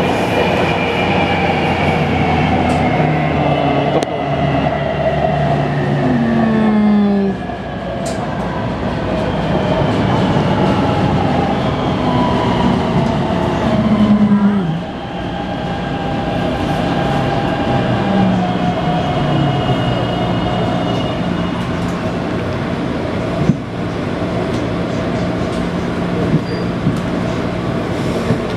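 Taipei Metro C321 subway train running, its traction inverter whining in several tones that slide down in pitch a few times over steady wheel and track noise. The inverter noise is abnormal for this train, which also has out-of-round wheels.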